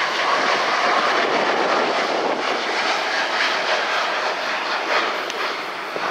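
Boeing 787's twin GE GEnx turbofans at takeoff thrust as the airliner climbs out just after liftoff: loud, steady jet engine noise.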